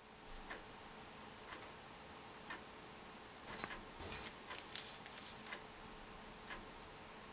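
Faint ticking about once a second, like a clock, over quiet room tone with a low steady hum. In the middle come a couple of seconds of louder rustling and clicking as the cleaver is handled in a latex-gloved hand.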